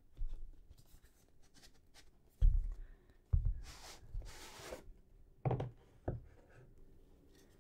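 A hardcover book being drawn out of its cardboard slipcase: soft knocks as the case is handled, a papery sliding hiss lasting about a second as the book comes out, then two more knocks as the case is put down.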